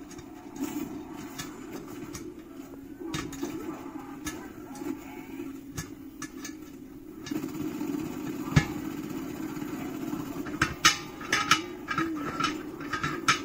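Metal tool clicking and scraping against the S-type spear valve of a stainless steel keg, working at the clip that holds the valve in. Scattered sharp metallic clicks with one harder knock partway through and a quick run of clicks near the end, over a steady low hum.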